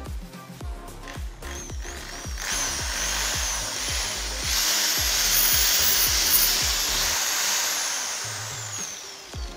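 Bosch GBM 13 RE 600 W corded electric drill running free in the hand, not drilling. It starts about two seconds in and speeds up about four and a half seconds in, its motor whine rising and falling with the variable-speed trigger. It winds down near the end with a falling whine.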